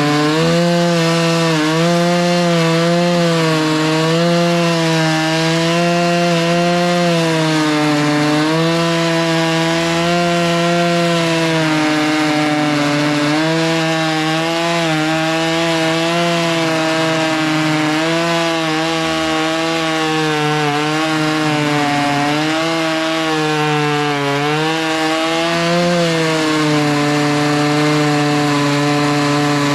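Chainsaw with a 20-inch bar cutting through a black oak log, running under full load. Its engine pitch keeps sagging and recovering as the chain bites into the wood.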